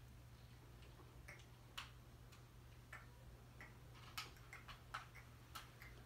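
Near silence: faint, irregularly spaced small clicks and ticks over a low steady hum.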